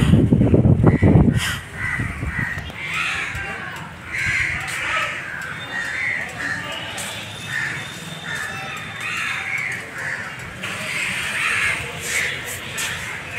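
Crows cawing again and again, a call every second or so. A loud low rumble fills the first second and a half, then stops.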